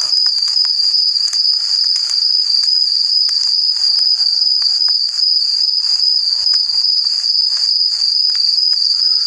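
A loud, steady, high-pitched chirring trill of insects, like a dense cricket chorus, that pulses slightly and never stops, with faint scattered clicks throughout.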